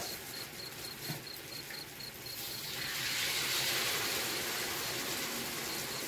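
Hot cooking oil sizzling in a wok as banana fritters fry, the hiss swelling louder about two seconds in and staying. Crickets chirp throughout in a fast, even pulsing trill.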